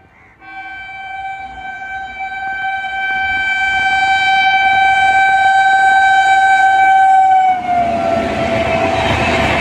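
A WAP-7 electric locomotive's horn sounds one long unbroken blast that grows louder as it approaches. The horn's pitch drops as the locomotive passes close by, about eight seconds in. The LHB coaches then rush past with the rumble and hiss of wheels on rail.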